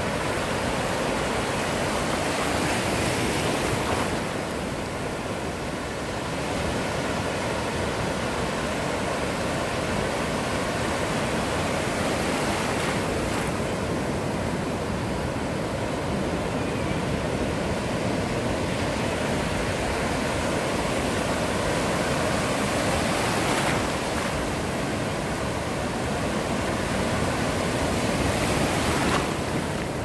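Ocean surf: waves breaking and washing up the beach as a continuous rushing wash, swelling louder every several seconds as each wave breaks.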